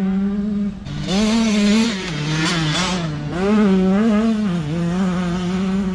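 Off-road racing dirt bikes' engines revving, the pitch rising and dipping again and again, with a brief drop in level about a second in.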